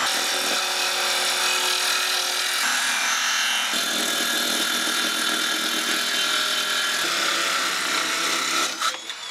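Circular saw cutting through a sheet of plywood, its motor running steadily under load. Near the end the trigger is released and the motor winds down.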